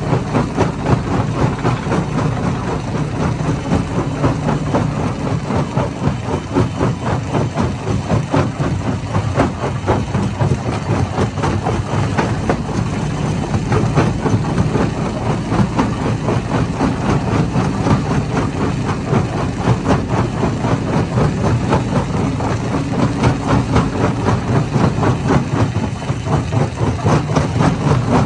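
Hammer-type stone crusher running, a steady heavy drone under a constant dense clatter of hard impacts.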